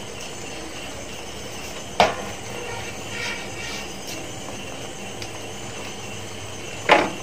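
Masala simmering in a large metal cooking pot with a steady hiss. Two sharp metallic clinks, about two seconds in and near the end, as a ladle knocks the pot.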